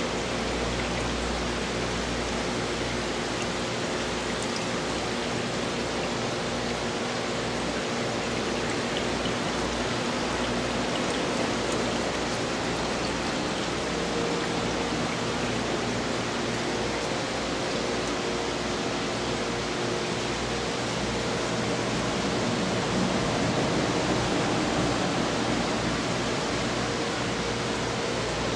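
Steady, even rushing noise with a faint low hum underneath.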